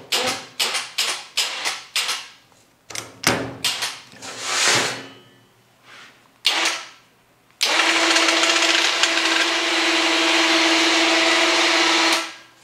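Electric wire-rope hoist motor running steadily for about four and a half seconds with a constant whine, winding a lifting magnet up on its cable, then stopping abruptly. Before it, a quick series of sharp metal clicks and knocks.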